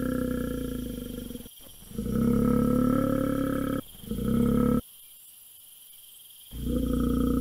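Bear growling: a run of low, rumbling growls with short gaps between them, the last starting after a longer pause near the end.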